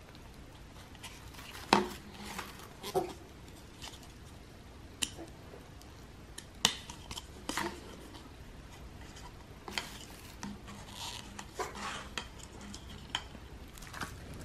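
Thin gold scalloped dessert plates being handled and taken from their plastic-wrapped stack: scattered light clicks and clacks of the plates against each other, with plastic crinkling in between. The sharpest clicks come about two seconds in and midway.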